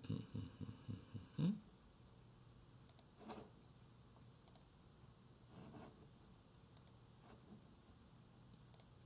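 Faint computer keyboard and mouse clicks, a few single clicks a second or two apart, after a short run of dull low thumps in the first second and a half.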